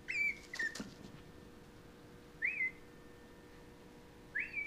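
A dog whining: four short, high-pitched whines, each rising then falling. Two come close together in the first second, one comes about two and a half seconds in, and one comes near the end.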